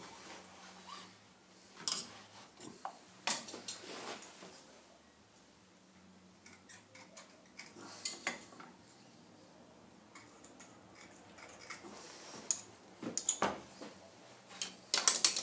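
Metal layout tools (scriber, steel rule, square) clinking and scraping against a blue-inked metal block as marking lines are scribed, in scattered sharp clicks with the loudest cluster near the end.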